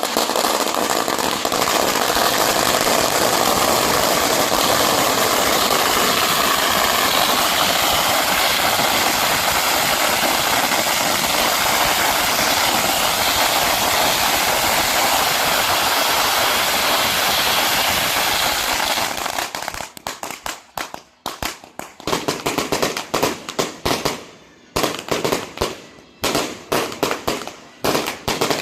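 Firecrackers going off: a long string crackling in one dense, unbroken rattle for about nineteen seconds, then thinning into separate rapid bangs with short gaps.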